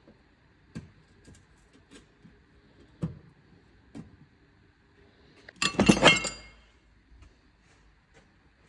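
A few light clicks and knocks, then about six seconds in a short burst of metal clinking and rattling with a ringing note, from metal parts or tools being handled during a brake job.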